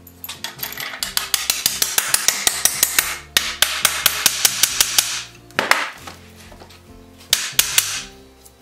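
Hand hammer striking the iron shoe of a wooden bobsled runner: a fast, even run of about five blows a second for some four seconds, then a few more blows near the end.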